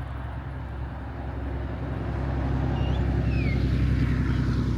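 A motor vehicle's engine running as it passes, growing louder toward the middle and then easing off.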